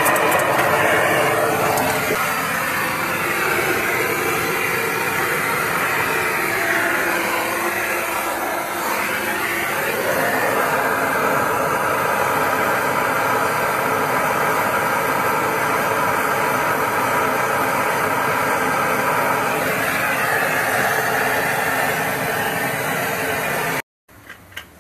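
Handheld gas torch burning with a steady hiss while its flame heats an old soldered copper pipe joint to melt out the remaining solder; the tone of the hiss slowly shifts as the torch moves. It stops abruptly near the end.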